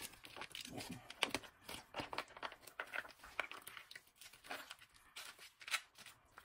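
Plastic sauce packet crinkling and crackling as it is squeezed empty, with irregular sharp crackles, the loudest about a second in and again near the end.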